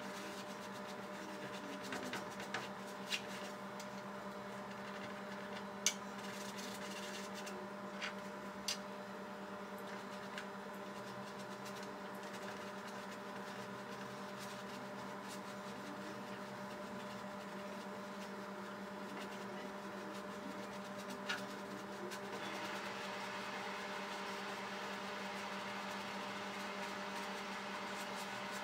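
Steady low hum and hiss of room tone, with a few faint clicks and taps scattered through the first ten seconds and one more about 21 s in; the hiss grows slightly louder about 22 s in.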